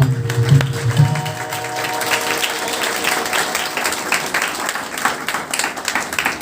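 Tabla strokes and a held chord close the song in the first second or so. Audience applause follows, a dense patter of clapping that thins toward the end.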